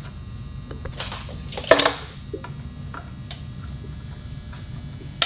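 Metal flip stop being slid along a sliding table saw's crosscut fence and clamped: a short scraping slide about a second in, then a sharp metal clank, with light clicks afterwards. A steady low hum lies underneath.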